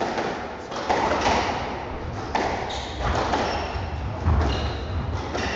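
Squash rally: the ball cracking off rackets and the walls in a series of sharp, echoing hits about once a second, with short high squeaks between them.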